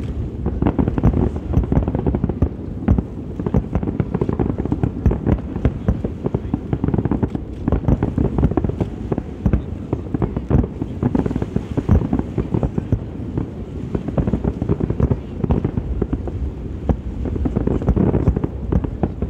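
Aerial fireworks bursting in a dense, unbroken run of bangs, many each second.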